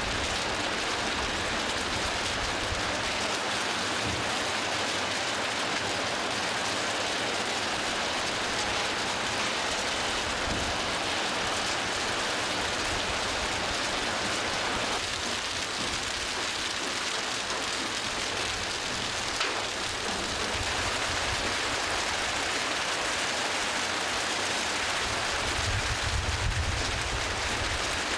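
Heavy hail mixed with rain pelting the road, a dense steady hiss of hailstones and water. A low rumble comes in near the end.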